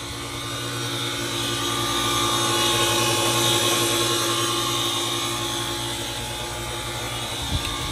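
Electric swimming pool pump motor running with a loud, steady hum and whine: its bearing is going bad.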